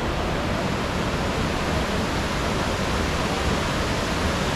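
Steady, unbroken rush of white water pouring down a rock cascade and rapids into a pool.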